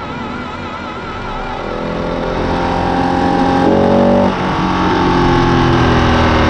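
Ducati 959 Panigale's Superquadro V-twin engine revving: the pitch climbs over a couple of seconds, dips briefly a little past the middle, then holds at higher revs.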